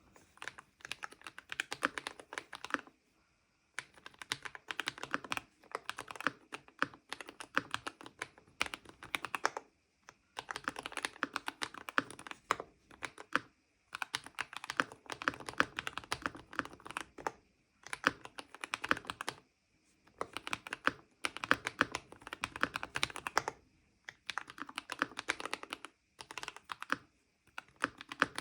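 Akko M1w mechanical keyboard with GrayWood V4 switches being typed on in fast runs of keystrokes, broken by short pauses every few seconds. The board is dampened with full foam, a tape mod and a force-break mod.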